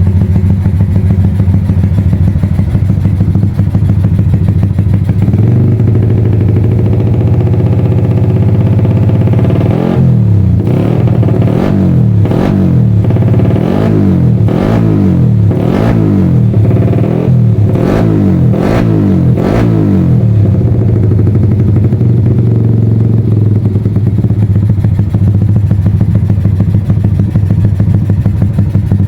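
Tuned four-stroke single-cylinder Yamaha motorcycle engine warming up at a steady idle. About ten seconds in it is blipped through a string of quick throttle revs for some ten seconds, then settles back to idle.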